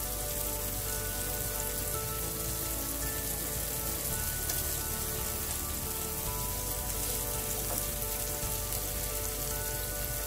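Halved boiled eggs frying in hot oil and tomato-onion masala in a pan, sizzling steadily.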